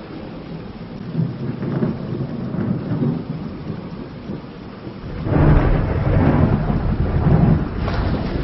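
Thunderstorm: rain falling steadily under rolling thunder, with a small rumble about a second in and a much louder, long peal of thunder starting about five seconds in.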